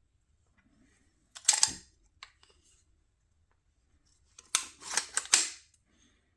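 Two short spells of clicking and rattling from hard parts being handled: a brief one about a second and a half in, and a longer one of several quick clicks around five seconds in.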